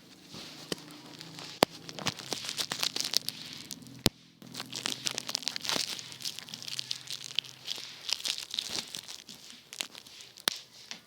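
Bubble wrap being handled: the plastic sheet crinkling and rustling throughout, with a few sharp snaps, the loudest about one and a half and four seconds in.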